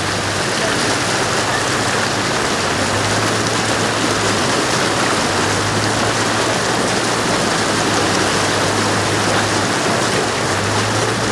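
Steady rushing of water, a continuous even hiss, with a low hum underneath that drops out and comes back a few times.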